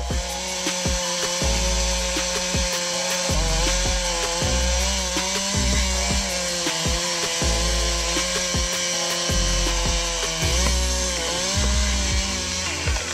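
Chainsaw cutting through the trunk of a large standing tree, running steadily under load with its pitch sagging briefly a few times. A deep, regular bass line of background music plays under it.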